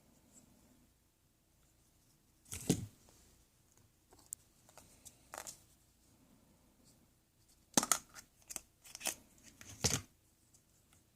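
A few short rustling, scraping handling noises: one a little under 3 seconds in, another at about five and a half seconds, and a quick run of them near the end.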